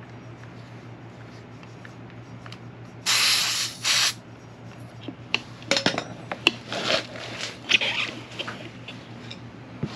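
Air hissing out of a motorcycle tyre's valve as the tyre is deflated, in a loud spurt about three seconds in and a shorter one just after. From about halfway, a tyre lever clicks and scrapes against the spoked rim as the tyre bead is broken loose.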